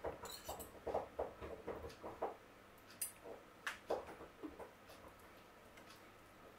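Metal forks clicking and scraping against a ceramic serving platter while flaking baked sea bass off the bone: a run of faint, irregular light taps, a few sharper clinks about three to four seconds in, stopping around five seconds in.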